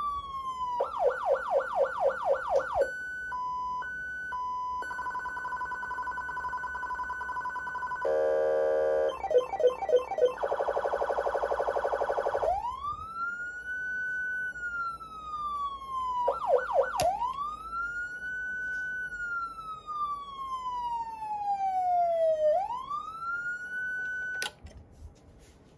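Federal Signal Unitrol Omega 5000 electronic siren, driven through an Omega 90 amplifier, cycling through its tones. It opens with a fast yelp of quick up-and-down sweeps, then gives a stepped two-pitch beep, a steady tone and a rapid buzzing warble. Slow wails follow, rising and falling, with a short yelp burst among them, and the siren stops abruptly about a second before the end.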